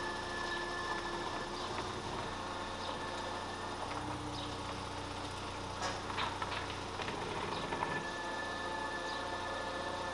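Audi A3 1.6's four-cylinder petrol engine running at idle: a steady drone with a whine that shifts pitch every few seconds.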